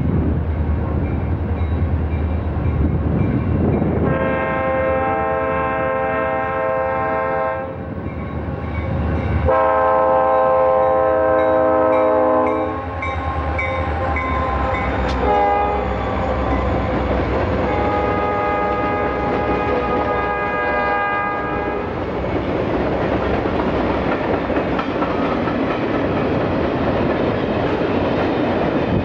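Conrail diesel freight locomotives passing close by, sounding an air horn in long, long, short, long blasts, the grade-crossing pattern; the horn's pitch drops as the locomotives go by about halfway through. The diesel engines rumble under the horn, and the freight cars then roll past with wheel clatter.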